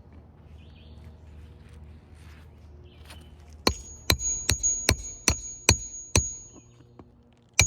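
Hammer striking a metal roof-snake nailing tool to drive a roofing nail under the shingle courses: seven quick, ringing metallic blows about 0.4 s apart starting about halfway in, then one more sharp blow near the end.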